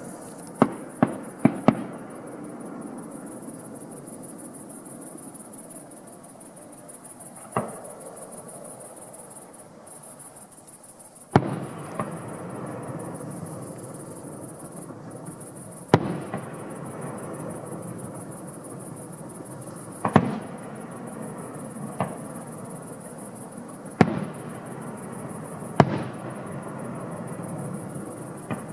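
Fireworks display: a quick run of sharp bangs in the first two seconds, then single loud shell bursts every two to four seconds, with a continuous crackle and rumble between them.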